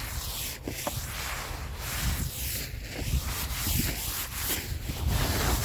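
Gloved hand wiping and scraping through snow on a car's surface, a run of rough swishing strokes.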